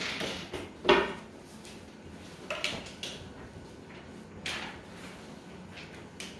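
Short handling noises in a classroom: paper pages being turned and a few knocks and scrapes, the loudest knock about a second in.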